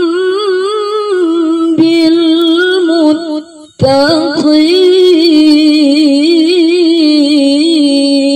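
A woman's melodic Quran recitation (tilawah), drawn out in long ornamented notes with a wavering pitch. She breaks off for a breath about three and a half seconds in, then comes back on a long held note.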